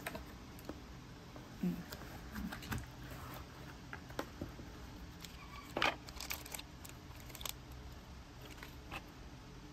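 Hands handling a cardboard box and its packed accessories: scattered light clicks, taps and rustles of cardboard and a plastic bag, the loudest about six seconds in, over a faint steady low hum.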